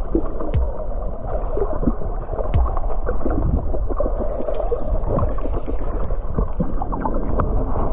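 Muffled underwater sound picked up by a camera held under the water: a dull, steady rush with scattered short clicks and crackles.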